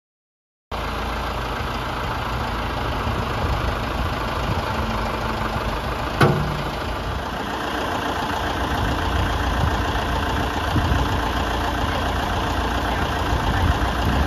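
Steady running of a vehicle engine, with one sharp click about six seconds in.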